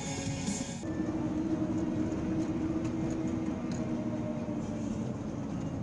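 Steady engine and road drone inside a truck's cab at highway speed, with a low, even hum. It follows a brief pitched sound from the previous clip that cuts off abruptly about a second in.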